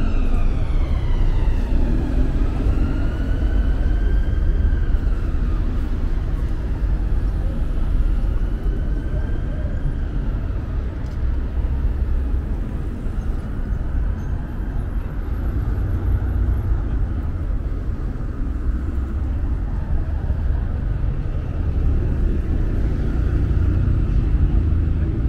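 Emergency vehicle siren wailing slowly up and down. It drops in pitch as it passes about a second in, then fades away over the next ten seconds or so, over the steady rumble of heavy road traffic.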